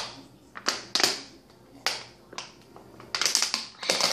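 Thin plastic water bottle crinkling in the hand: a series of sharp, separate crackles, with a quick cluster of them about three seconds in.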